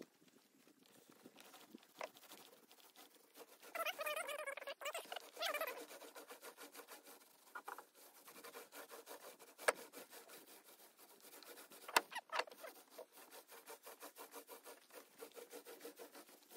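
Small paint roller rolling textured Herculiner roll-on bedliner onto a camper panel, a soft rubbing that repeats in an even rhythm of strokes. A short wavering pitched sound comes about four seconds in, and two sharp clicks come near 10 and 12 seconds in.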